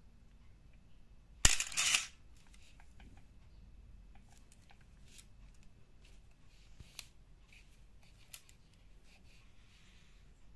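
Canon AE-1 Program firing with the Canon Motor Drive MA attached, about a second and a half in: a sharp shutter click, then the drive's brief mechanical whir as it winds on. A few faint handling clicks follow.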